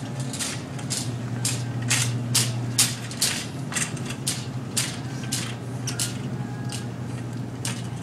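A shopping cart pushed at walking pace across a tiled store floor, with sharp clicks about twice a second over a steady low hum.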